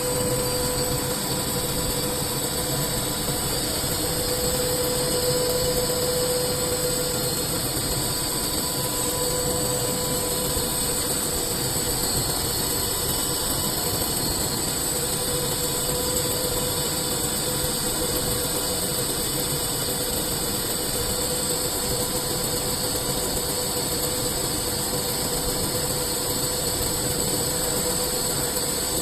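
CNC machine running steadily while machining a cylinder into a sphere: a constant hum with a steady high whine above it.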